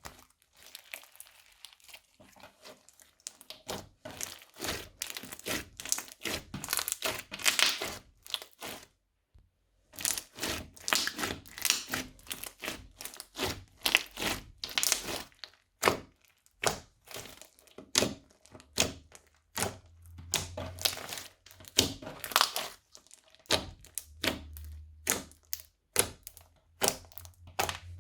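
Crunchy slime being worked, crackling and popping in quick runs of sharp snaps, with a short silent break about nine seconds in.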